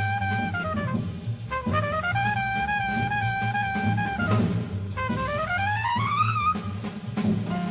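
Background music: a single lead melody holds a note, slides down in pitch about half a second in, climbs back and holds, then slides down again and glides up near the end, over a steady low accompaniment.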